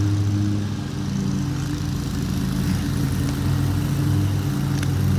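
Lawn mower engine running steadily, its pitch shifting slightly a couple of times.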